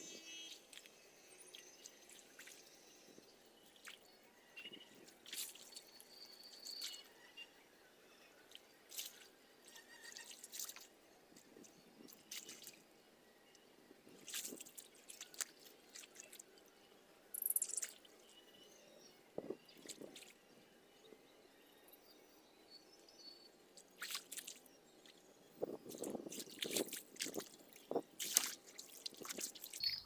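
Small, scattered splashes and drips of muddy pool water as a man waist-deep in it works his hands through the water. Near the end comes a quicker run of louder sloshing as he wades out.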